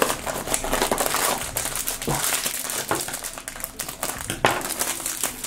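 A foil-wrapped blind-box mini plush being pulled from its cardboard box and handled, the foil wrapper crinkling and crackling throughout, with a couple of sharp clicks.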